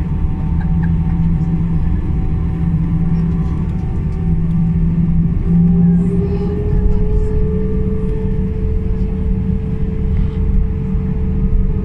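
Cabin noise of an Airbus A319 taxiing: its CFM56 engines run at idle as a steady low hum and rumble, and a whining tone rises a little about halfway through.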